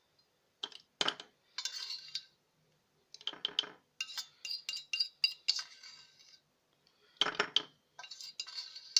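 Metal kitchen utensils clinking against a pot and a bottle, in short clusters of sharp clinks with a brief high ring, as the garlic-and-clove oil remedy is transferred into the bottle.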